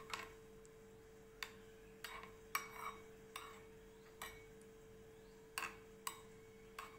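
Metal spoon stirring and beating curd in a bowl, the spoon clicking against the side of the bowl about ten times at irregular intervals, over a faint steady hum.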